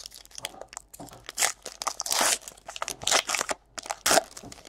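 A foil trading-card pack wrapper being torn open and crinkled by hand: an irregular run of crinkling rips and crunches, with several louder tears.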